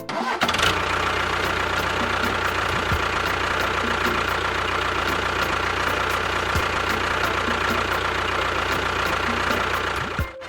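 Small engine running steadily at an even speed, cutting out abruptly just before the end and resuming at once.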